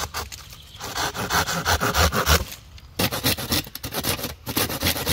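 Silky Gomboy curved folding saw cutting through a dead branch with quick back-and-forth strokes, pausing briefly twice. About three seconds in, a blade scrapes rapidly along a stick, stripping off side twigs and bark.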